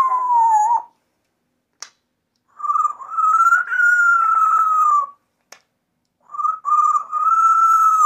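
African grey parrot giving three long, drawn-out calls, each held on a fairly steady pitch for one to two and a half seconds, with a couple of brief clicks in the gaps.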